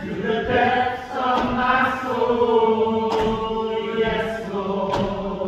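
Church choir singing slow, long-held notes. Two sharp percussive hits cut through the singing about three and five seconds in.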